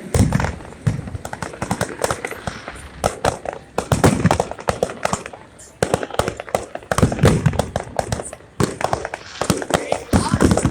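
Fireworks show in full barrage: a rapid, dense crackle of bursts with deep booms every second or few.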